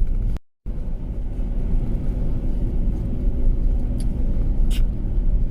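Steady low rumble of a van driving along the highway: engine and road noise, cut by a brief gap of silence about half a second in.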